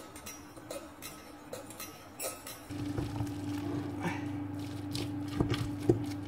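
A utensil stirring a stiff quinoa and grated vegetable mixture in a glass bowl, with scattered clinks and soft squelches. A steady low hum comes in a little under halfway through and holds.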